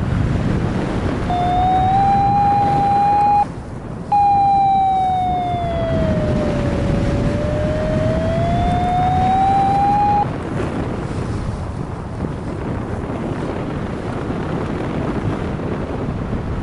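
A flight variometer's continuous electronic tone that rises in pitch, breaks off briefly, then slides down and back up before stopping, over heavy wind noise on the microphone.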